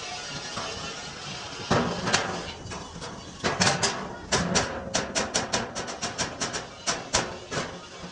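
Hammer blows on a dented metal truck fuel tank being beaten back into shape. The strikes are sharp. They come a few at a time at first, then in a quick run of about five a second, then a few more near the end.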